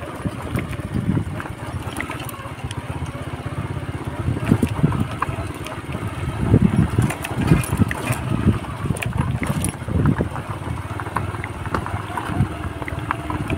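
Wind buffeting the microphone in gusts, with irregular knocks and scuffs as it moves along a stony dirt road.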